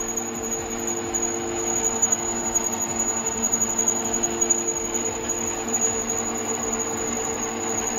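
Bernardo benchtop metal lathe running steadily without a cut: an even machine hum with a steady high whine above it.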